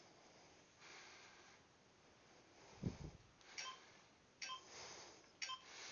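Faint breathing and sniffing of a person catching her breath after exertion, with a dull thump about three seconds in and a few short clicks near the end.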